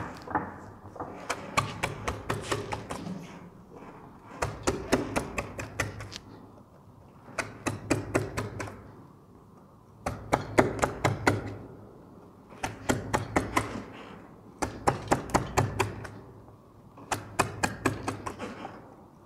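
Wood-carving gouge being struck in quick runs of sharp taps as it chips crescent-shaped cuts into a wooden moulding. There are about seven runs of a second or two each, with short pauses between them.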